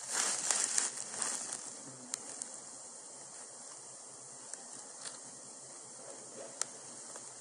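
Steady hiss of a quiet room feed. Rustling in the first second or so, and a few faint clicks later on.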